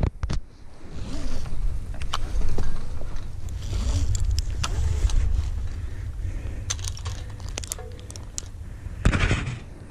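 Tree-climbing hardware being handled: metal carabiners, a rope pulley and an ascender clinking and clicking as rope is pulled through gloved hands, in a string of short sharp clicks over a steady low rumble. A louder rustle comes about nine seconds in.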